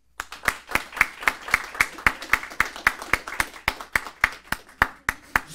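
Audience applauding, with one set of sharp claps standing out at about four a second over lighter clapping.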